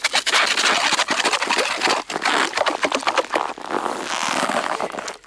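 Ice and snow crunching and scraping as a frozen-over ice-fishing hole is cleared by hand and with a tool: a dense, irregular run of crackly scrapes.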